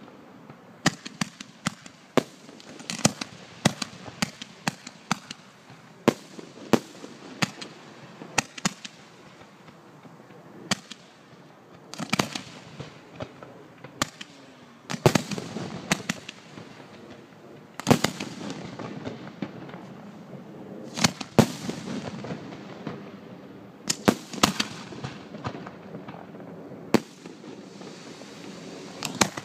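Fireworks display: a steady run of sharp bangs and pops from shells bursting overhead, some in quick clusters, over a hissing wash that thickens about halfway through, where the loudest bangs come.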